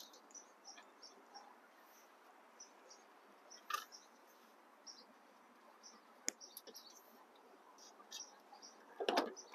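Hands working a car's engine-bay wiring harness and its plastic connector into place: faint rustling and light taps, with a sharp click a little after six seconds and a short rustle near the end.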